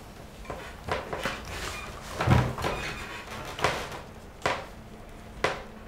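Two people moving against each other on a couch: a string of short knocks and bumps, the loudest a dull thud about two seconds in.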